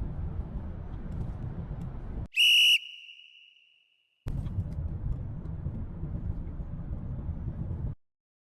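Steady low rumbling background, broken a little over two seconds in by one short, loud, high whistle-like tone that rings away over about a second; the rumble resumes and then cuts off abruptly near the end.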